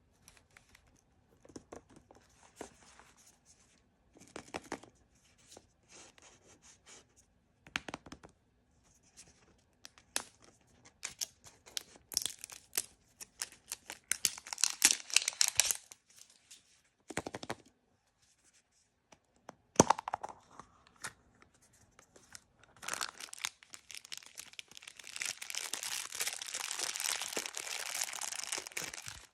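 Blind-bag wrappers being handled, crinkled and torn open by hand: scattered crackles and short rips, louder about halfway through, then a longer continuous tearing rustle from about three-quarters of the way in.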